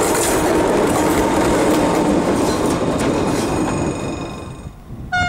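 Diesel locomotive passing close at low speed, its engine and wheels rumbling over the rails, with a few steady high tones over the rumble; the sound fades as it moves away after about four seconds. A train horn cuts in right at the end.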